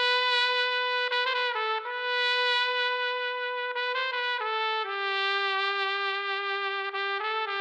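Instrumental music: a trumpet playing a slow melody of long held notes, with only a few brief note changes.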